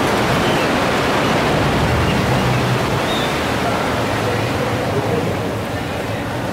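Steady rushing noise of sea surf breaking along the shore, easing slightly near the end.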